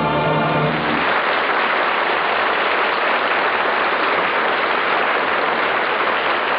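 The last held chord of a song for voices and orchestra stops about a second in, and a studio audience then applauds steadily.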